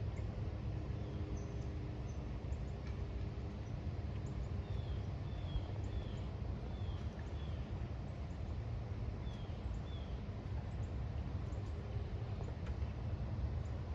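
A small bird giving short, high, falling chirps: a run of about five in the middle and two more a little later, over a steady low rumble.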